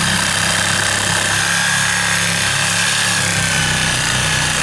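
An electric power tool running steadily under load, with a high motor whine that sags slightly in pitch partway through.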